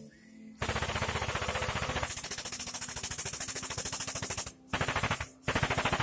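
Pump of a homemade 50-ton hydraulic press running as it drives the ram down to press a rusted packer wheel off its shaft: a fast, even rattle that starts about half a second in and breaks off briefly twice near the end.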